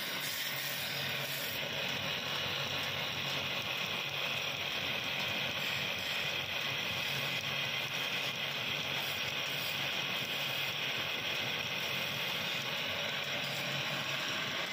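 Floor-level wood lathe running while a hand-held chisel cuts a spinning wooden stool-leg blank: a steady scraping hiss of the cut over the lathe's even mechanical running.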